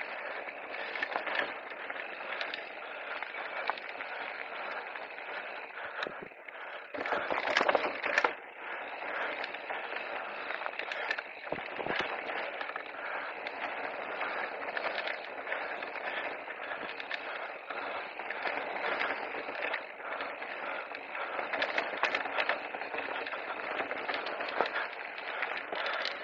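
An electric mountain bike rolls fast over a dry, stony dirt trail. Its tyres make a steady crunching hiss on the gravel, peppered with clicks and rattles from stones and the bike. A louder burst of rattling and crackling comes about seven to eight seconds in.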